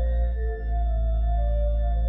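Background music: soft ambient organ-like keyboard chords, held tones shifting slowly from note to note over a steady low bass.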